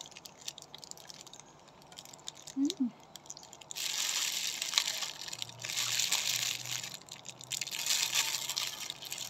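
Clear plastic bag crinkling loudly in three stretches from about four seconds in, as the bread held in it is handled. Before that, faint chewing of the bread, with a brief hum of the voice about three seconds in.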